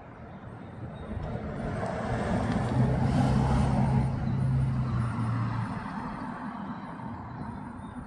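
A motor vehicle passing by. Its low engine hum and road noise swell to a peak about three to four seconds in, then fade away.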